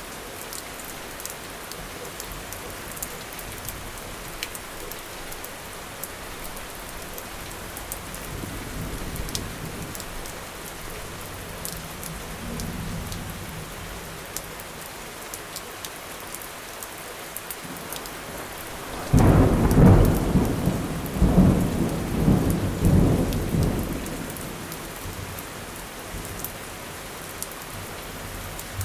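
Steady rain falling, with scattered drops ticking. A soft low rumble of thunder comes and goes in the first half. About two-thirds of the way in, a loud thunderclap breaks suddenly and rolls on in several rumbling waves for about five seconds before fading back to the rain.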